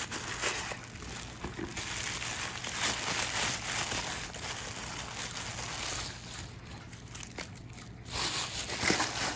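Tissue paper rustling and crinkling as it is pulled apart and lifted out of a small cardboard box, with louder handling noise near the end.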